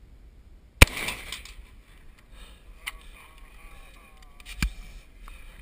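A single sharp crack about a second in, with a short ring after it, then a few lighter metallic clicks as an AR-15 rifle is handled and its magazine removed.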